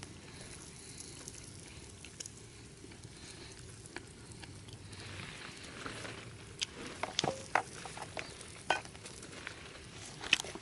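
Steak sizzling over a campfire: a faint steady hiss that grows a little after about five seconds, with sharp pops and crackles scattered through the second half.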